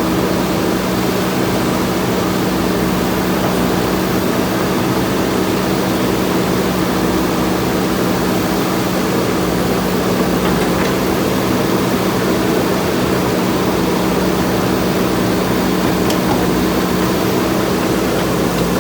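JCB backhoe loader's diesel engine running at a steady speed, a constant hum over a noisy rumble with no revving.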